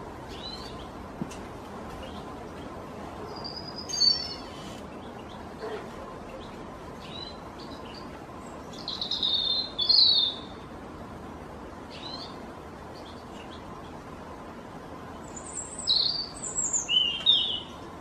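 European robin singing: short, high, twittering phrases a few seconds apart, with three louder phrases and fainter notes between, over a steady background hiss.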